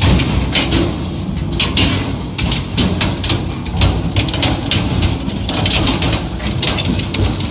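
Heavy industrial crushing machine breaking up material, a steady low rumble under many irregular sharp cracks and knocks.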